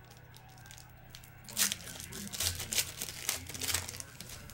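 Trading-card pack wrapper crinkling and tearing as it is opened, a quick run of short rustles in the middle of the stretch.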